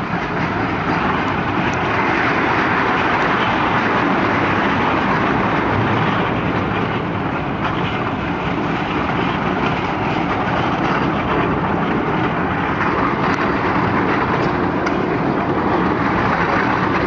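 Ride-on miniature replica train rolling along its track, heard from a riding car: a steady rumble and rattle of wheels on the rails.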